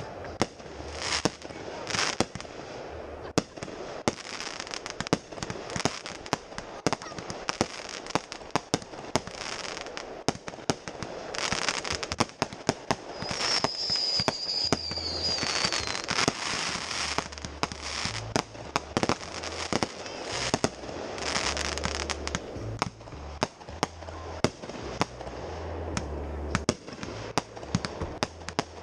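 Fireworks going off in a dense, uneven string of sharp bangs and crackles, with stretches of hissing from rising shells and sparks. A short falling whistle comes about halfway through.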